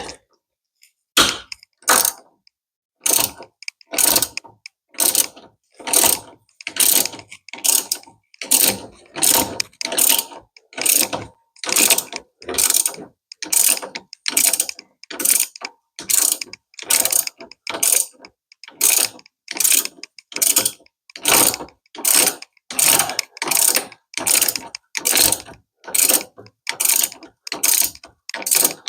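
Ratchet wrench clicking in regular strokes, roughly one a second, as a rusty bolt on a classic Mini's rear trailing arm bracket is worked out.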